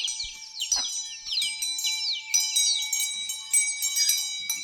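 A crowd of poultry chicks peeping: many quick, high chirps that slide down in pitch, overlapping without a break. Under them runs a steady, high ringing tone.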